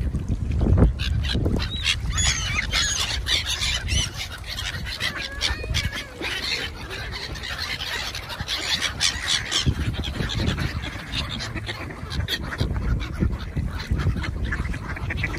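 A mixed flock of waterfowl and gulls calling over each other: Canada geese honking, mallards quacking and gulls giving many short, squealing cries, busiest in the first half.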